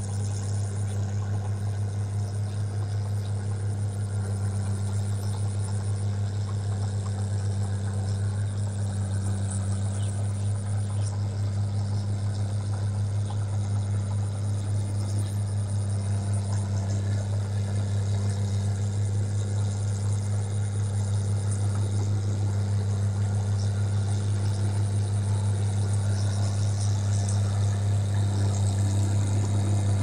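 An engine running steadily with a constant low drone that grows slightly louder over the stretch.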